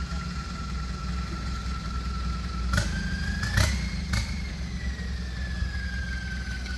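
Off-road vehicle's engine running low and steady, with a whine that rises in pitch about three seconds in and then slowly falls back. Three sharp knocks come around the rise.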